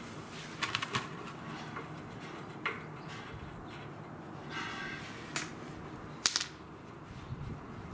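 Scattered light clicks and taps as fingers spin a 2005 Harley-Davidson Fat Boy's oil drain plug out of the frame by hand, the sharpest click a little past six seconds in.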